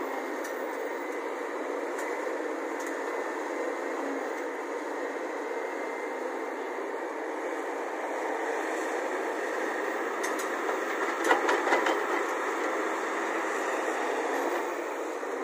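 Volvo crawler excavator's diesel engine running steadily as it digs and swings its loaded bucket. About ten to twelve seconds in, a burst of knocks and rattles as the bucket dumps its soil into the steel bed of a tipper truck.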